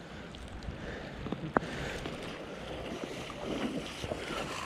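Wind buffeting the microphone over flowing river water, with one sharp click about one and a half seconds in.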